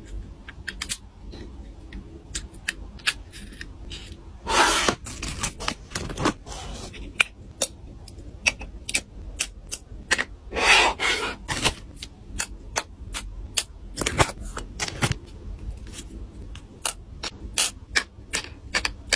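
Tweezers and small plastic miniature toy pieces clicking and tapping as they are picked up and set down, in quick uneven taps. Two brief scraping slides come about five seconds in and again about eleven seconds in.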